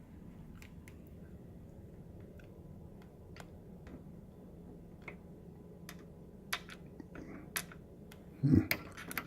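Light clicks and taps of hands working plastic microwave control-panel parts and screws back into place, scattered at first and coming faster near the end, with one louder dull bump about eight and a half seconds in.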